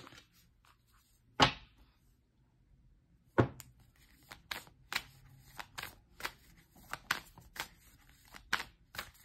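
A deck of oracle cards shuffled by hand: two single taps, then a steady run of light card slaps about three a second.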